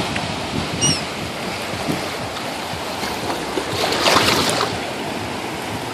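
Surf washing on the beach with wind on the microphone, swelling louder about four seconds in. A brief high chirp about a second in.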